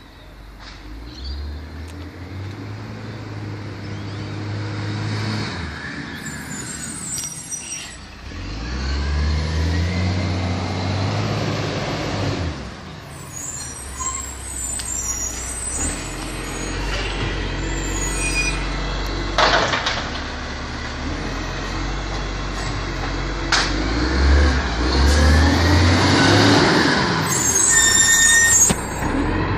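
Side-loader garbage truck working along the street, its engine revving up and falling back several times as it pulls ahead and stops, with air-brake hisses and squeals. It grows louder toward the end as the truck draws close.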